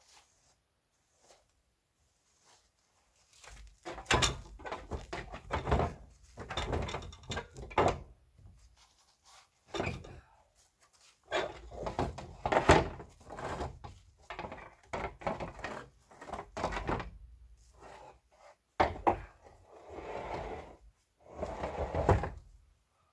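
Irregular knocking, thudding and scraping on the snow-covered body of an old backhoe loader as a man works over its hood and engine area, clearing snow and handling its metal parts, in uneven bouts with short pauses.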